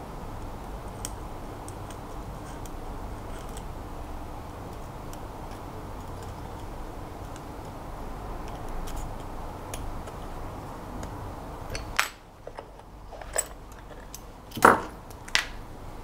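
Lock pick and tension wrench working a brass pin-tumbler lock cylinder: faint metal ticks and scrapes over a steady background hiss. In the last few seconds come a handful of sharper metal clicks, the loudest about a second before the end.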